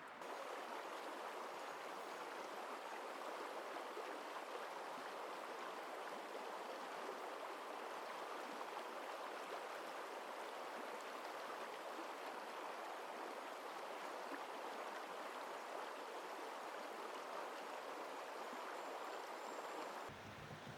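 Steady rushing of flowing water, an even stream-like noise with no separate events, cutting off abruptly near the end.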